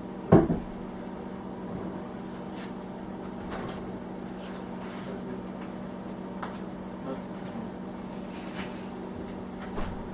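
A small space heater's steady hum, with one sharp knock just after the start and a few light clicks and taps scattered through.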